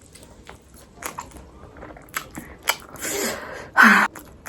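Close-up mouth sounds of a person eating rice and chicken: soft chewing with a few sharp wet clicks, then a loud, short breathy burst near the end.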